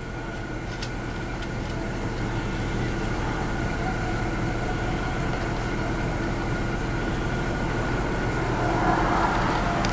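Car engine idling steadily, heard from inside the parked car's cabin as a low, even hum.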